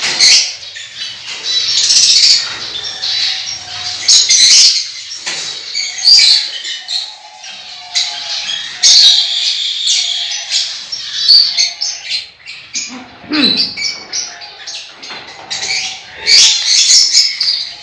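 Small pet parrots chirping and squawking in shrill, repeated bursts, with a softer, lower-pitched call repeating underneath for much of the time.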